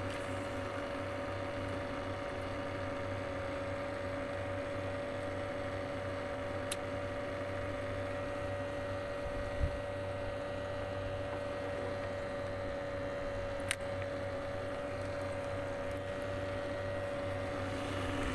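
Small battery-powered aerator pumps running with a steady hum, bubbling air into the container of live shrimp bait. Two faint clicks and one low knock break in partway through.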